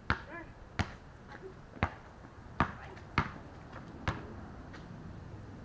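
Basketball bouncing on a concrete driveway as it is dribbled: about six sharp thumps at uneven intervals over the first four seconds.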